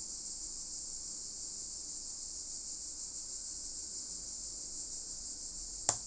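Steady high-pitched hiss throughout, with a single sharp click near the end.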